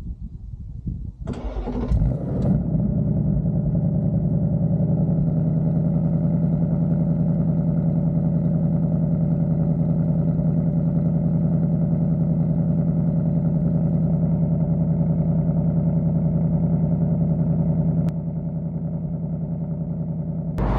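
2024 Ford Mustang GT's 5.0-litre V8, with its stock active exhaust, firing up with a loud flare about a second in, then settling into a steady idle that gets slightly quieter near the end.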